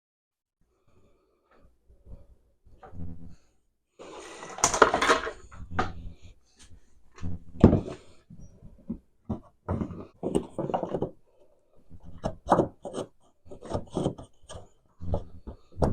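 Irregular knocks, scrapes and rubbing of wooden pieces and tools being handled, with a louder scraping clatter about four seconds in.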